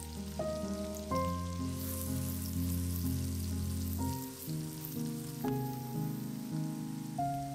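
Background music with sustained melodic notes over a bass line, laid over a quieter, steady sizzle of diced onion frying in butter and oil in a pan.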